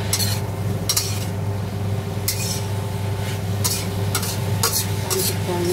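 Spatula scraping and knocking against a wok while stir-frying vegetables and scrambled egg, with a light sizzle. The strokes come irregularly, roughly one or two a second, over a steady low hum.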